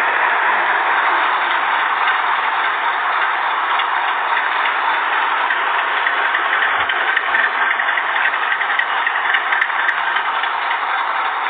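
Diesel engine of an old city bus running as the bus manoeuvres, a steady, dense engine noise with no change in pitch.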